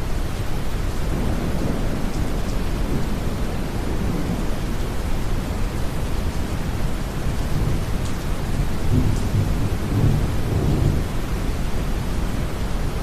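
Deep brown noise blended with steady rain, with low rolls of distant thunder rumbling up about a second in and again more strongly near the end.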